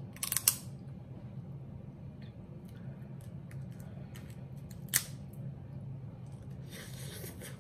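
Crab shell cracking and snapping as it is picked apart by hand: a few sharp cracks near the start, a single loud crack about five seconds in, and a short scraping rustle near the end, over a steady low hum.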